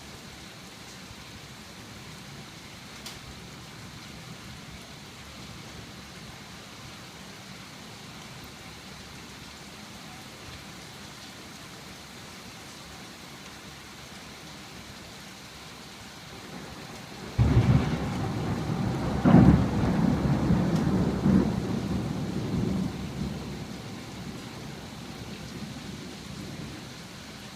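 Steady rain falling, then about two-thirds of the way through a sudden thunderclap that rumbles for several seconds and fades away.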